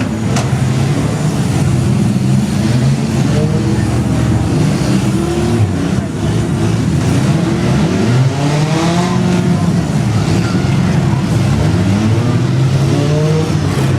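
Several demolition derby car engines running and revving together, their pitches rising and falling over one another.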